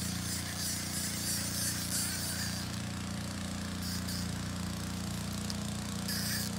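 A steady low mechanical hum under a high hiss that comes and goes, with no clear splashes or reel clicks.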